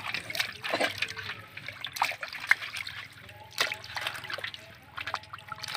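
Water splashing and trickling in irregular small splashes, as when something is washed by hand in a basin.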